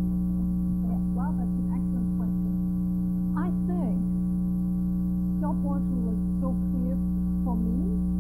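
Steady electrical mains hum with a stack of overtones, the loudest thing heard, over faint conversation between two women.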